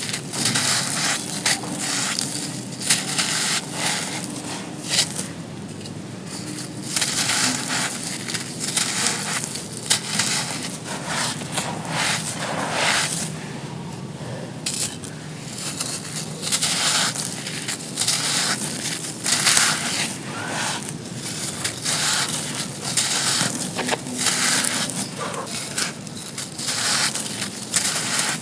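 Dry, gritty sand cones being crushed and crumbled: an uneven run of crisp crunches and crackles, several a second.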